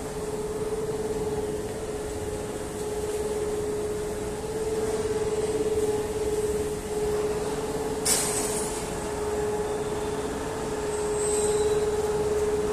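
Steady machinery noise inside a steel rebar mill, with a constant hum-like tone running under it. About eight seconds in there is one sharp clank.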